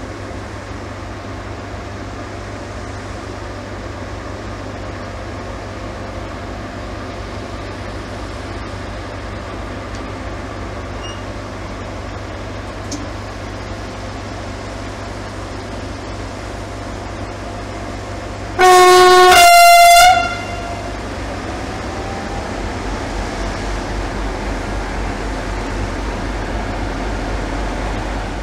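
ST44 (M62-type) diesel locomotive with a two-stroke V12 diesel running steadily, then sounding two short horn blasts about two-thirds of the way in, a lower note followed by a higher one. After the horn the engine's low rumble slowly grows louder.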